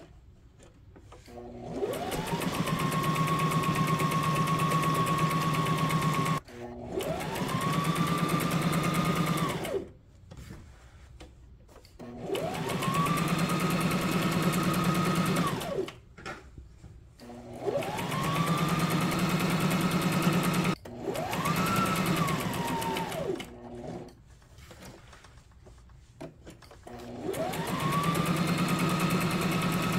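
Brother SM2700 sewing machine sewing straight stitches through cotton fabric in about six runs of a few seconds each, with short pauses between. In each run the motor whine rises in pitch as it speeds up, holds steady while stitching, and drops away as it stops.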